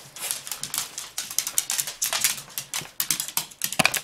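Claws of several small spaniels clicking and tapping on a hardwood floor as the excited dogs shuffle about, a quick irregular patter of clicks.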